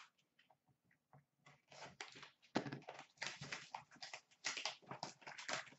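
Clear plastic shrink-wrap being torn off a sealed box of hockey cards and crinkled in the hands. It starts about a second and a half in as a fast, irregular crackling.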